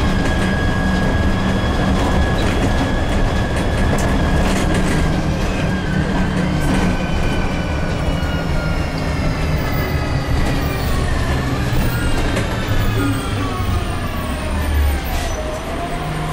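City bus heard from inside: diesel engine running with a rumble, under a high driveline whine that holds steady at first, then falls steadily in pitch over several seconds as the bus slows.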